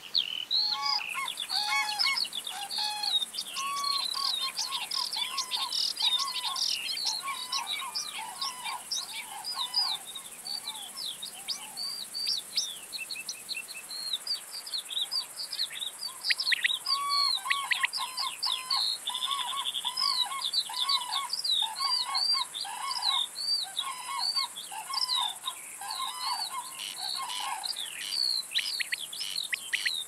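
A dense chorus of bird calls: many short chirps and whistles, with a lower call repeated over and over for several seconds at a time. A steady high hiss begins about a second in and continues underneath.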